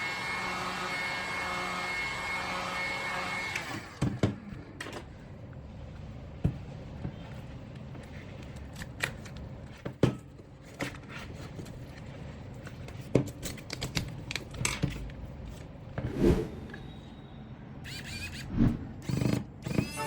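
A steady mechanical hum stops about four seconds in. After it, scattered sharp clicks and knocks sound as small hard objects are handled.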